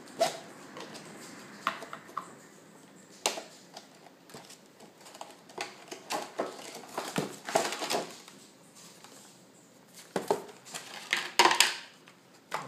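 Clear plastic GoPro dive housing being handled and worked open. Scattered hard plastic clicks and knocks come with rustling between them, and the loudest clicks fall near the end.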